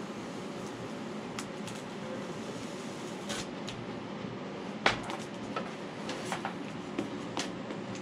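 A handful of light clicks and knocks from working the foam board with a hot knife, the sharpest about five seconds in, over a steady background hiss.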